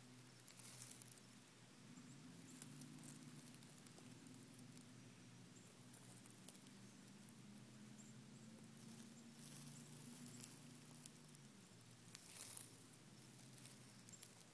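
Faint rustling and crunching of dry grass under a walking sulcata tortoise, coming in a few short bursts over a steady faint low hum.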